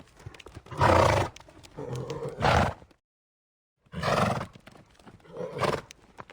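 Horse calling in several short, loud calls, with faint clicks between them. About three seconds in the sound drops out completely for nearly a second at an edit.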